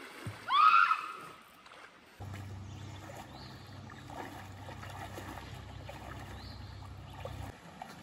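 A swimmer's short high-pitched squeal about half a second in, then a steady low rumble over faint splashing and creek water as a girl wades into the creek.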